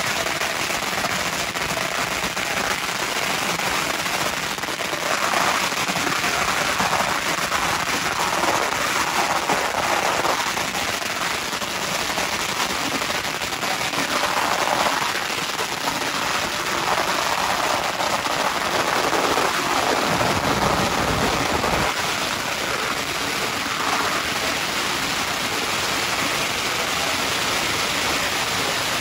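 Long strings of firecrackers going off in a dense, continuous crackle of rapid pops, so thick that it runs together like a downpour.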